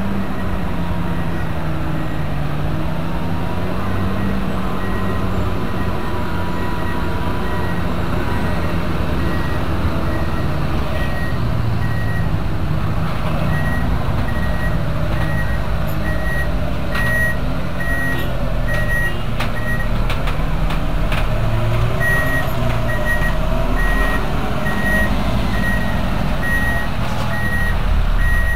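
Heavy trucks' diesel engines running at a steep hairpin bend, their pitch rising and falling, with a vehicle's reversing alarm beeping high and even, about twice a second, from about five seconds in. The beeping pauses briefly about two-thirds of the way through.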